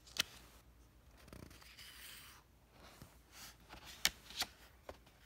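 Faint rustling and a few light clicks of a picture book's paper pages being handled.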